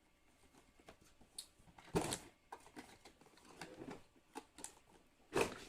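Handling noise: scattered small clicks and rustles, with two louder knocks, one about two seconds in and one near the end.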